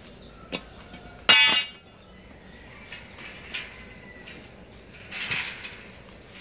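Steel tubing and wire mesh of a cage frame being handled: a click, then a loud ringing metal clank about a second in, a few light ticks, and a rattling rustle of the wire mesh near the end.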